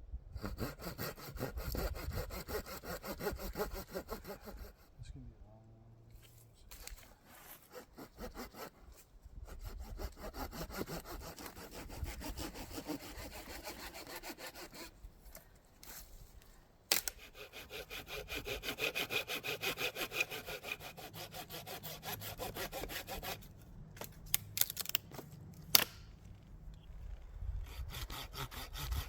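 Saw cutting through wood with quick, even back-and-forth strokes in several runs, broken by short pauses, with a few sharp knocks partway through.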